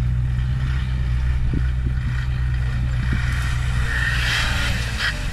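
Off-road 4x4's engine running at steady low revs on a rock-crawling stage. A rougher, higher noise swells in about three and a half seconds in and fades just before the end.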